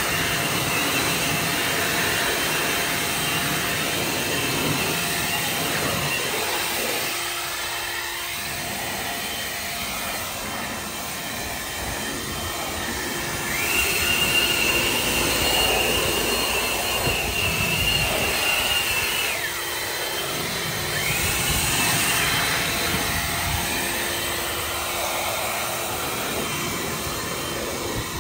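Two EGO cordless battery leaf blowers running, blowing water off a car's wet bodywork with a steady rush of air. About halfway through, one blower's high whine climbs and holds for several seconds, then falls away. It rises again briefly a little later.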